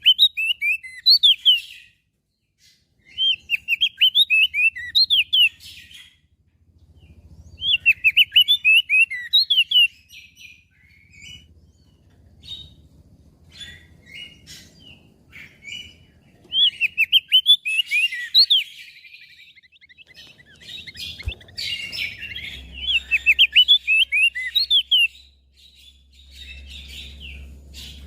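Crested white-eye (opior jambul) singing: repeated bursts of fast, warbling notes, each burst about two seconds long, with scattered single chirps in between.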